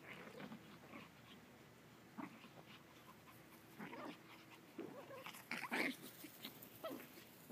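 Pomeranians making short, faint dog sounds here and there, the loudest a little under six seconds in.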